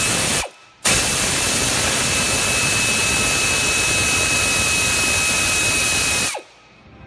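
Power tool running on a socket to spin out the idler pulley's 15 mm bolt: a steady high whine over loud hiss. It cuts out briefly about half a second in, then runs for about five and a half seconds and winds down with a falling whine near the end.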